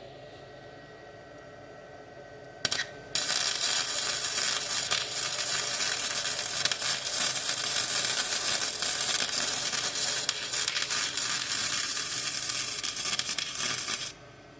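Gasless flux-core MIG welder arc crackling: a brief strike about two and a half seconds in, then a steady spattering crackle for about eleven seconds as a bead is run on a steel repair patch, cutting off suddenly near the end.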